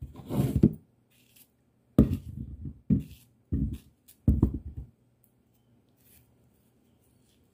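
Kitchen knife cutting through a crisp pommerak (Malay apple) held in the hand: five short cuts, one right at the start and the rest in a cluster from about two to five seconds in.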